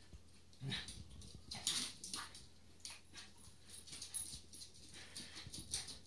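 Dogs moving about on a tiled floor: faint scattered clicks and soft dog sounds.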